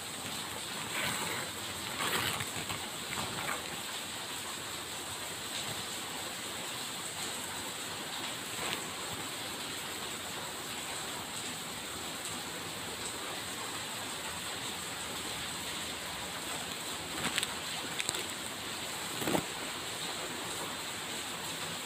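Steady background hiss, with a few brief rustles and knocks near the start and again late on from a plastic bag and a plastic food tub being handled.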